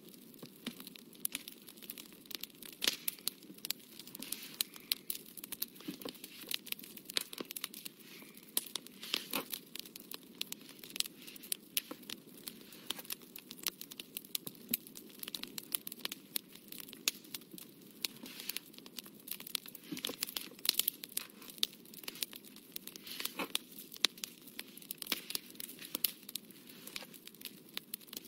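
A fine-tipped drawing pen scratching across paper in short, irregular strokes, over a steady low background noise.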